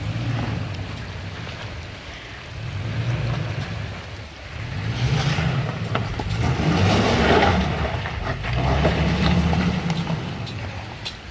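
2021 Toyota Tacoma TRD Off-Road's engine pulling in slow surges, rising and falling several times, as the truck crawls over a rocky creek bed, with stones crunching and clicking under the tyres.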